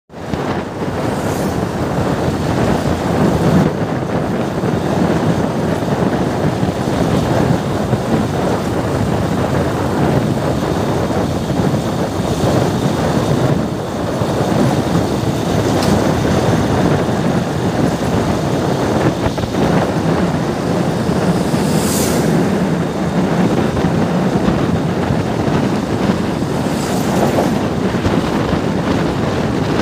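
Steady rumble of tyres and wind from a vehicle driving across a steel-truss road bridge, with a few brief sharp ticks.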